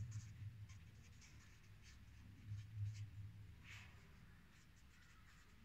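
Felt-tip marker writing a word on paper: faint scratching, stroke after stroke with short gaps.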